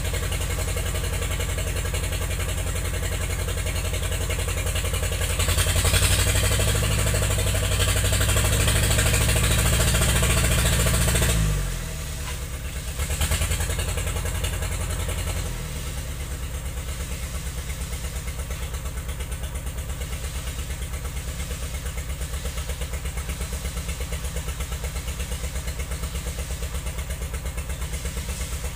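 Engine of a 'wing' log skidder running. About six seconds in it revs up and holds higher for about five seconds, drops off suddenly, revs briefly once more, then settles to a steady idle.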